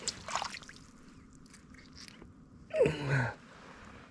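Small wet clicks and rustles of a hand unhooking a lure from a trout and handling the fish on wet ground. About three seconds in comes a short, loud grunt-like sound from a person.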